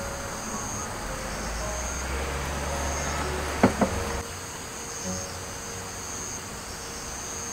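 Steady high-pitched insect chorus from the surrounding woods, swelling and fading in a regular pulse. Two sharp knocks about three and a half seconds in, the loudest sounds here.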